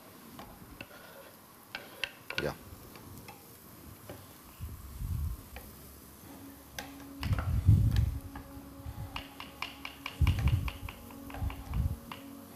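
Mushrooms being tipped into a frying pan and stirred with a wooden spoon: light clicks and taps of the spoon against the pan, coming thicker near the end, with a few dull thumps, the loudest about halfway through.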